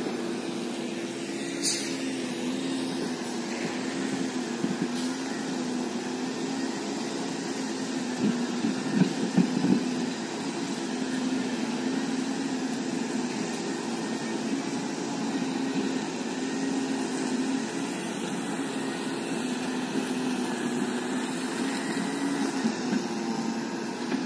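Diesel passenger train's engine running, a steady low hum that wavers slightly in pitch. About nine seconds in there is a brief rough burst of noise.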